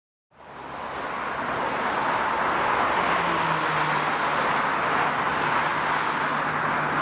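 Road traffic noise from cars and vans driving on a busy dual carriageway: a steady wash of tyre and engine noise that swells up out of silence in the first second or so, with a faint low engine hum from about three seconds in.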